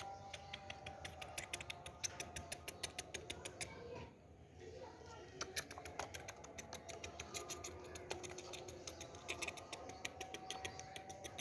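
Rapid run of small sharp clicks, several a second, with a short pause about four seconds in.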